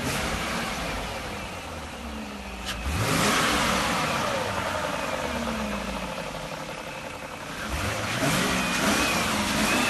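BMW E38 7 Series engine and exhaust being revved twice, about three seconds in and again about eight seconds in, the pitch climbing quickly each time and then falling back toward idle.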